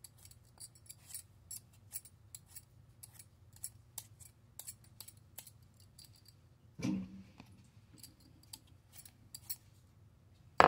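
Vegetable peeler scraping the skin off a raw potato in quick repeated short strokes. There is a dull thump about seven seconds in and a sharp knock right at the end.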